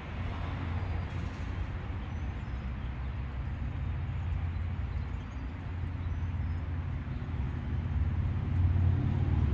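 A vehicle running with a steady low rumble that grows louder near the end.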